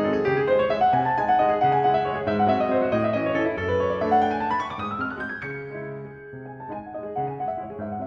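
Background piano music: held chords and melody notes, with a quick rising run of notes about four seconds in, after which the playing briefly softens before continuing.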